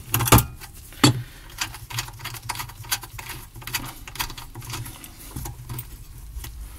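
Handling noise on a workbench: two sharp clicks in the first second, then a run of light, irregular clicks and taps, over a low hum.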